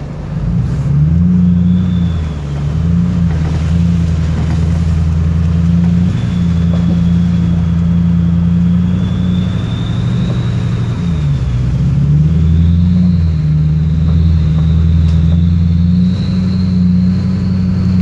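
Single-turbo Duramax diesel V8 pickup under way, its engine drone steady with two brief dips as the throttle eases. Over it the turbo whistles high and thin, coming in with the throttle and climbing in pitch near the end as it spools up.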